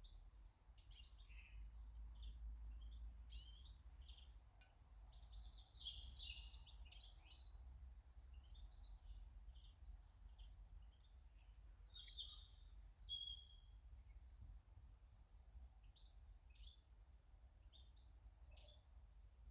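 Small garden birds chirping and calling, a busy run of short, high chirps and brief trills with no pause, over a faint low rumble.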